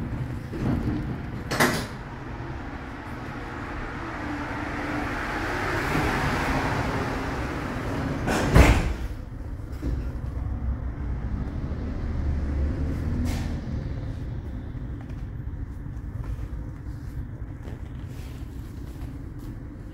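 Inside a light-rail tram car: a steady low rumble from the car. A hiss swells and fades over several seconds, and a sharp thump comes about eight and a half seconds in, with lighter clicks before and after.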